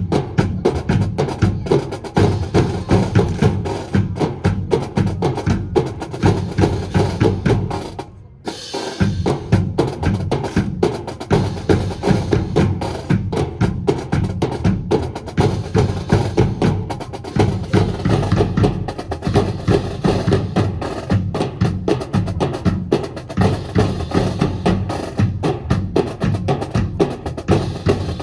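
Marching drum section, snare and bass drums with sharp stick clicks, playing a fast steady drill cadence; it breaks off briefly about eight seconds in, then picks up again.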